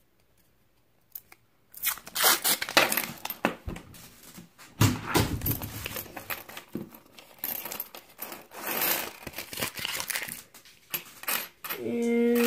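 A paper coin-roll wrapper torn open and crinkled, starting about two seconds in, mixed with pennies sliding out and clinking against each other on a wooden table as they are spread out.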